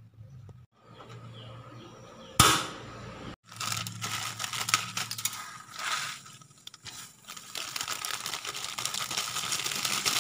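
Crackling, ticking hiss of water heating in an aluminium pot on a gas stove, with a dry instant-noodle block going in. One sharp knock about two and a half seconds in.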